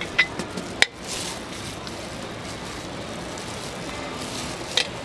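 A spatula spreading chocolate-hazelnut spread over a crepe on a griddle, with a few sharp clicks: two within the first second and one near the end. A steady hiss sits underneath.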